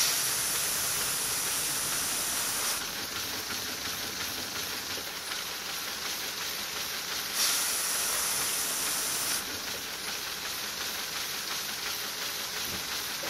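Compressed air hissing from a LEGO pneumatic V8 engine as it runs, steady throughout and louder and sharper for two stretches of two to three seconds, at the start and about midway.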